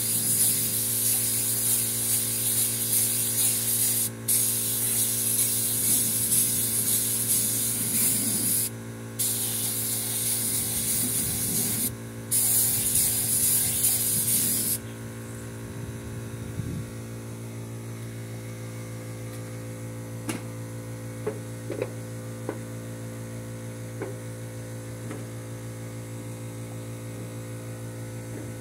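Gravity-feed air spray gun hissing as it sprays sanding sealer, in long bursts with three short pauses, stopping about 15 seconds in. A steady low hum runs underneath, and a few light clicks follow after the spraying stops.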